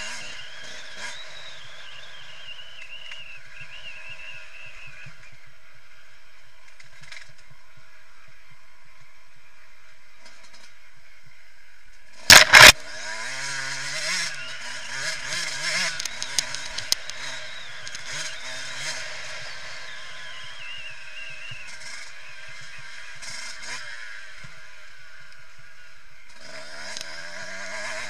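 Yamaha YZ125 two-stroke single-cylinder motocross engine revving up and down under riding. About halfway through come two very loud knocks in quick succession, followed by several seconds of harder revving before it settles again.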